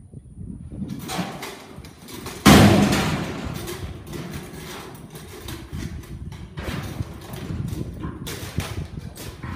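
A loud metal crash at the bucking chute about two and a half seconds in as the bucking bull comes out, then the bull bucking on the dirt, its hooves landing in uneven thuds.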